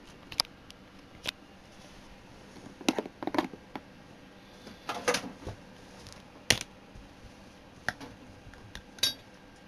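Irregular sharp clicks and clinks of small hard objects being handled, some in quick clusters, over a faint steady hum.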